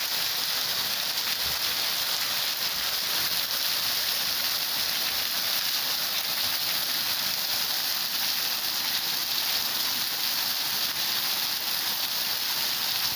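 Heavy rain pouring down steadily, a dense even hiss of drops hitting roofs and the street.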